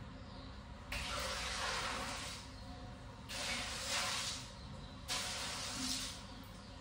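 Soapy detergent water thrown from a plastic bucket splashing across a tiled floor, three times. Each splash starts suddenly and hisses away over a second or so.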